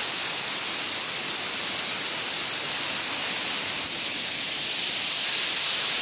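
Waterfall: the steady hiss of water falling onto rock.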